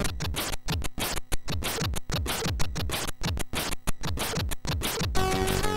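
Commodore 64 SID-chip demo music in a drum break: the melody drops out and rapid, choppy noise hits alternate with short kick-drum notes that drop in pitch. Near the end the melodic tones come back in.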